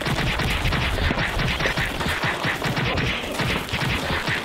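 Cartoon brawl sound effect: a dense, rapid barrage of bangs and hits. It keeps up without a break and cuts off suddenly just after the end.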